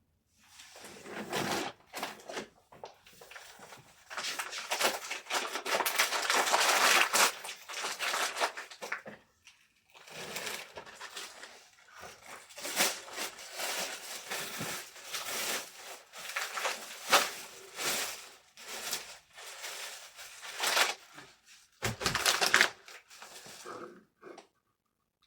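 Packaging material being handled: crinkling and rustling with many small crackles and clicks, loudest about a quarter of the way in, with short pauses, stopping shortly before the end.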